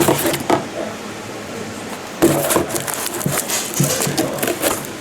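Packaging rustling and crinkling as the parts of a rock light kit are unpacked by hand, with scattered crackles and a denser burst of crinkling from about two seconds in.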